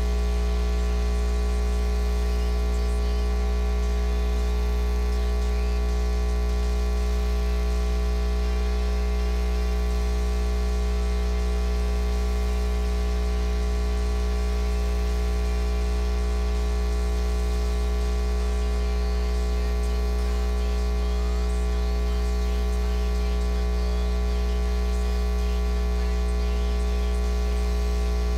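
Steady electrical mains hum: a low drone with a stack of buzzing overtones and a light hiss of static, unchanging throughout.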